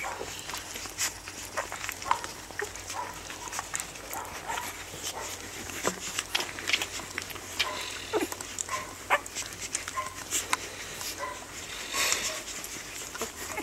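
One-week-old rough collie puppies suckling at their mother: a busy run of wet sucking and smacking clicks, with short high squeaks from the pups now and then.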